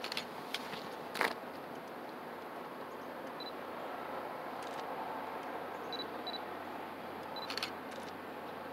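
A compact digital camera taking photos: several sharp shutter clicks, the loudest about a second in and a cluster near the end, with a few very short high beeps between them, over a steady background hiss.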